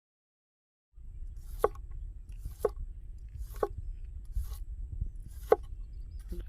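Five sharp knocks, about one a second, each with a short ringing tone, over a steady low rumble: food being struck on a hard surface during spice and vegetable preparation. The sound starts suddenly about a second in.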